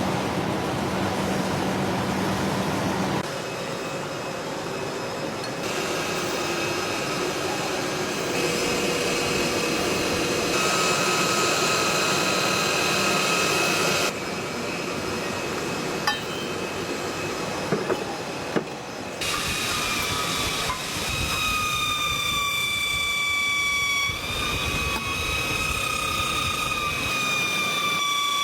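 Factory machinery running steadily in stainless steel water bottle production, the noise changing abruptly every few seconds as one machine gives way to another. In the last third a high machine whine of several evenly spaced tones comes in and dips slightly in pitch partway through.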